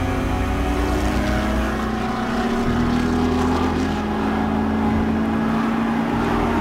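Ford GT40 Mk II's 7-litre V8 race engine running flat out at near top speed, a steady engine drone.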